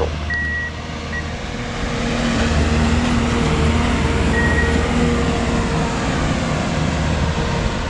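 A CSX rail-bound track maintenance machine passing on the rails, its engine running and its wheels rolling, growing louder from about two seconds in as it comes close. Two brief high-pitched tones sound, one right at the start and one about four seconds in.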